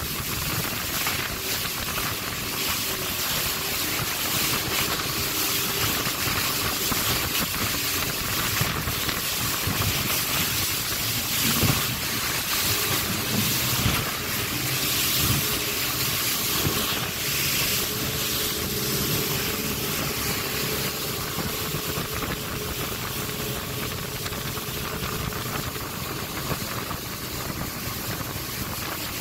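River boat's engine running under load through rapids, with rushing white water and spray splashing against the hull and wind on the microphone; the splashing grows louder about halfway through.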